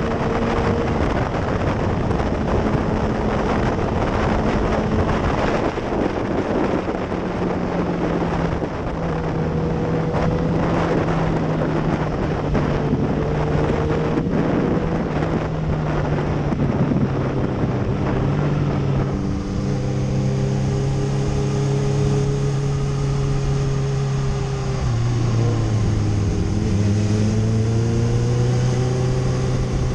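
Kawasaki sportbike's inline-four engine running at steady revs under heavy wind rush on the microphone. About two-thirds of the way through the wind rush dies down and the engine note comes through clearly, dropping in pitch briefly near the end and then climbing again.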